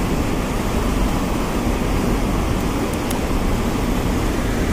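Steady rushing roar of water pouring over a dam spillway.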